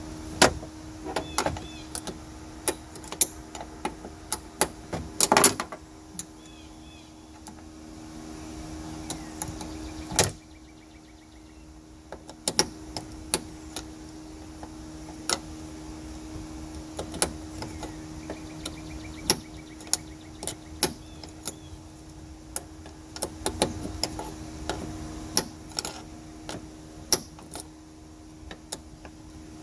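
Irregular metal clicks and clinks of a 12 mm wrench and hand working loose the lower mounting bolt of a hatchback lift strut, with a louder clatter about five seconds in and a sharp knock about ten seconds in, over a steady low hum.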